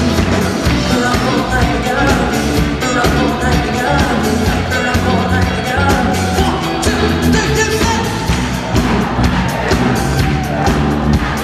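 Live pop band playing a song mash-up with a steady beat, a male lead singer singing over it.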